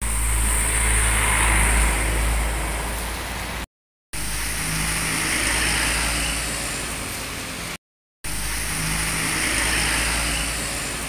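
Intercity coach's diesel engine running as the bus passes on a wet road: a steady low rumble with tyre hiss that swells and fades. The sound cuts out completely twice, for a moment each time.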